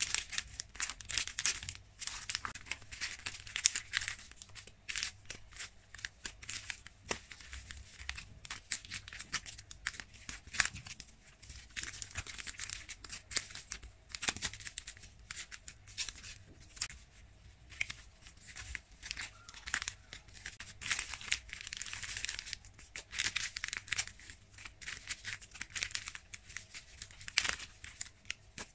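Wrapped tea bag sachets and plastic packaging crinkling and rustling as hands shuffle through them, with many irregular sharp crackles.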